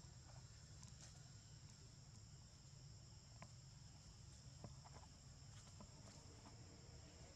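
Faint, steady high-pitched drone of insects calling, with a few faint ticks over a low background rumble.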